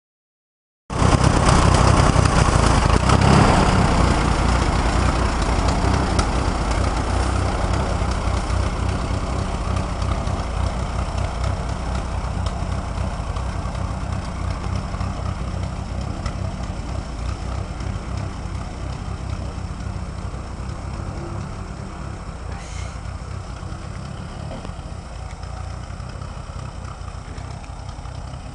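Tractor engine running steadily, growing gradually fainter.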